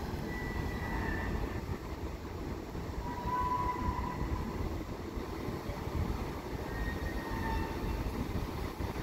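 Steady low rumble of a moored ferry's open deck, with wind buffeting the microphone and a few faint, brief high squeaks over it.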